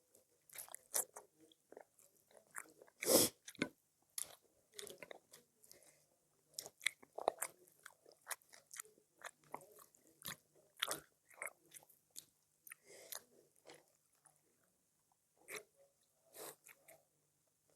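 A person eating at close range: irregular chewing and biting with sharp crunches, one loud bite or crunch about three seconds in.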